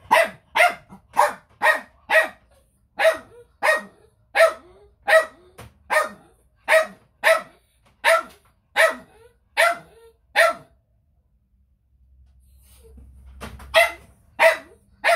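A dog barking in a steady run of sharp barks, about two a second, then stopping for a few seconds before three more barks near the end.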